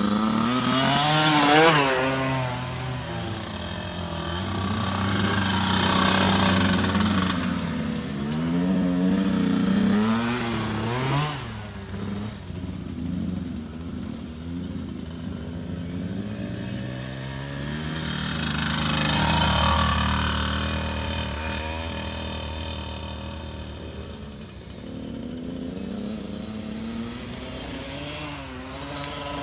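Small two-stroke kids' dirt bikes riding past, engines revving up and down with each shift and throttle change, loudest about two seconds in, around six and ten seconds in, and again about twenty seconds in.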